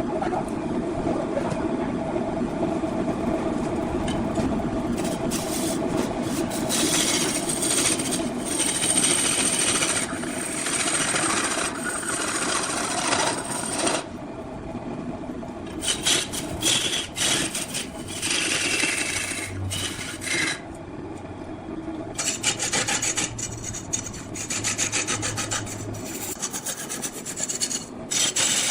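A tool scraping and cutting into wood spinning on a wood lathe, in long bursts of rasping over a steady machine hum.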